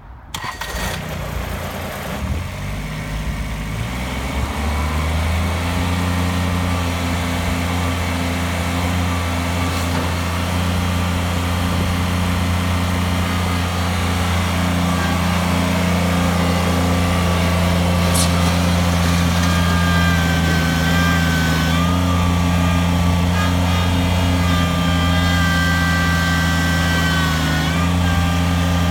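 Kubota BX25 sub-compact tractor's three-cylinder diesel engine starting, its speed rising over the first few seconds before settling into a steady run. A thin, wavering higher whine joins it in the second half.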